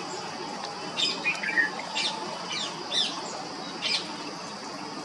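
Red-whiskered bulbul calling: a series of short, sharp notes roughly one a second, with a brief warbled phrase about a second in.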